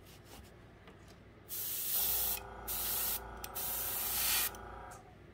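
Gravity-feed airbrush test-spraying onto cardboard: three short hisses of air and paint, starting about a second and a half in. A steady hum comes in about two seconds in and stops near the end.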